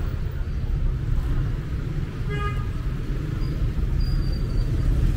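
Steady city street traffic rumble, with one short vehicle horn toot a little over two seconds in.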